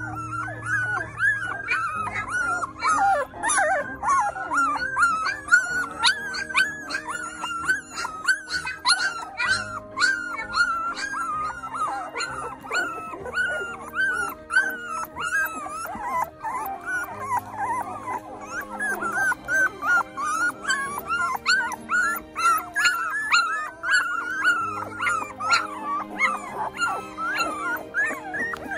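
Young English Cream Golden Retriever puppies whimpering and squeaking without pause, several high-pitched calls overlapping one another.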